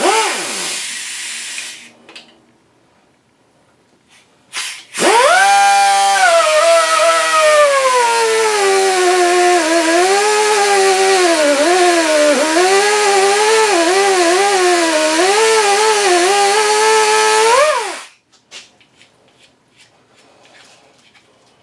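Air-powered die grinder winding down in the first second, then after a short pause a brief blip and a long run of about thirteen seconds, its pitch dipping and wavering as it grinds away a broken worm screw, before it cuts off suddenly.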